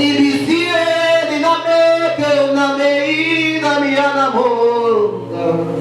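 A voice singing long, held, wordless phrases with sliding pitch, over steady sustained instrumental chords of worship music.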